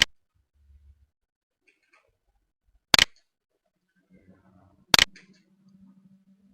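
Computer mouse clicking three times: sharp single clicks at the start, about three seconds in and about five seconds in. A faint low hum sits under the last couple of seconds.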